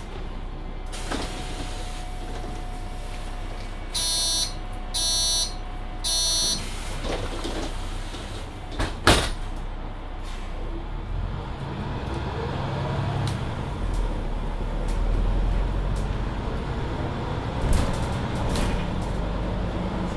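Mercedes-Benz Citaro C2 Hybrid city bus at a stop: three short door-warning beeps, then a loud thud as the door shuts. The drive then rises in pitch and the low engine rumble builds as the bus pulls away.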